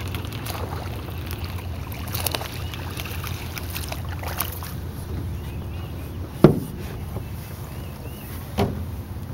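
Two knocks against the side of an aluminum boat, a sharp loud one about six and a half seconds in and a smaller one two seconds later, as a hooked small bass is lifted to the gunwale, over a steady low hum.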